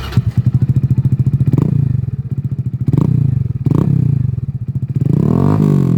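Yamaha R1 inline-four superbike engine idling with a pulsing beat, throttle blipped three times, then a longer rev that rises and falls near the end.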